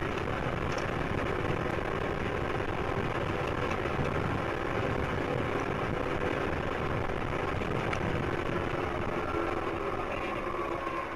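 Zip line trolley running along its cable: a steady whirring with a faint hum that slowly drifts in pitch, under heavy rushing wind noise.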